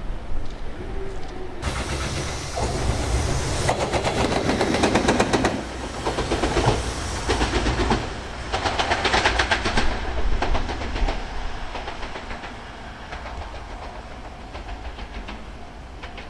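Freight train passing, its wagon wheels clacking over the rail joints in quick rapid runs of clicks, loudest through the middle and fading away near the end.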